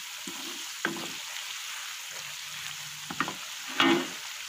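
Sliced onions and chillies sizzling in hot oil in a wok, stirred with a wooden spatula that scrapes and knocks against the pan a few times, the loudest stroke near the end.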